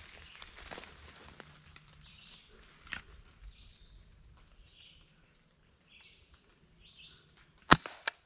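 A single shot from a scoped air rifle near the end: one sharp, loud crack, followed about half a second later by a second, quieter snap. Before it there is only a faint steady insect drone with faint chirps about once a second.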